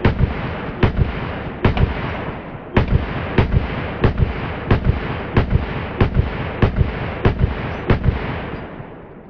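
Rapid series of gunshots, about fourteen, roughly one every two-thirds of a second, with a heavy rumble of echo between them. The firing stops about eight seconds in and the echo dies away.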